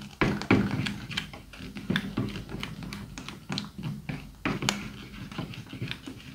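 Runny slime mixture being stirred with a spatula in a metal tray: wet, sticky squelches with many irregular clicks and pops.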